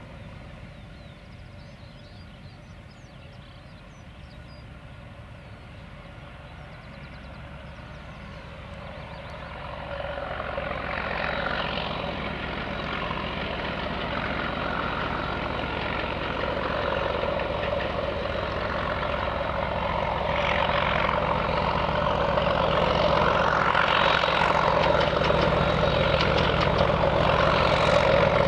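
Class 31 diesel locomotive working under power as it approaches with a train of coaches, its engine growing steadily louder, with a jump in level about ten seconds in. Birds sing faintly in the background near the start.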